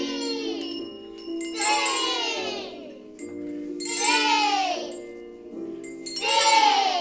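Children's hand bells ringing a slow tune, a new group of bells rung about every two and a half seconds, each ring dying away while lower tones hang on underneath.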